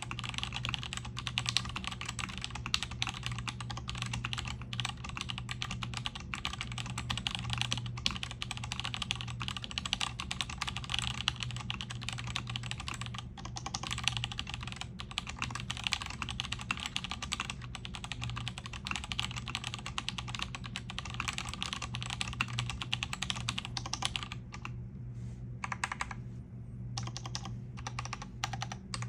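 Continuous fast typing on a custom mechanical keyboard with vintage Cherry MX Black linear switches lubed with RO-59, an aluminium plate and PBT keycaps: a dense stream of keystrokes that thins to a few separate key presses for a few seconds near the end.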